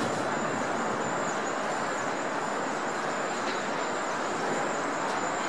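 Steady city traffic noise, with a faint steady high whine.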